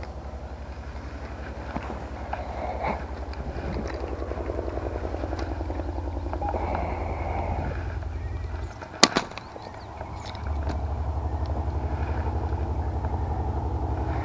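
Outboard boat motor running at low speed, a steady low pulsing hum. It cuts out for about a second and a half near the middle, with a sharp knock, then comes back a little louder.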